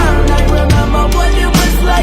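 Background music with a heavy bass line, drum hits and a singing voice.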